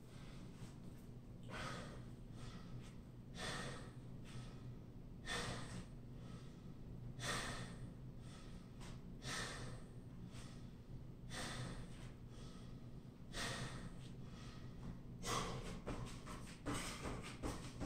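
A man breathing hard during a HIIT workout, one loud breath about every two seconds. Near the end the breaths come quicker, with light thuds of his feet landing as he starts jumping.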